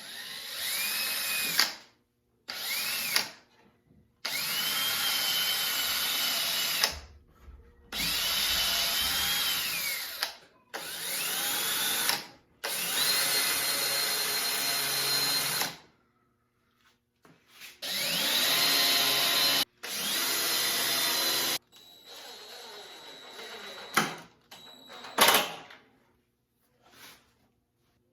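Electric drill run in about eight short bursts, its motor whine climbing in pitch as it spins up and dropping off when the trigger is released. A few sharp clicks and knocks follow near the end.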